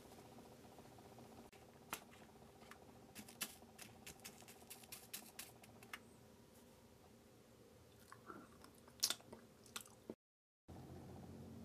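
Small crackling clicks of a chocolate-coated candy on a wooden skewer being pressed into tiny sugar sprinkles in a plastic tray. There is a run of clicks from about two to six seconds in and a few more near the end, the loudest near the end, over a faint room hum. The sound cuts out briefly just before the end.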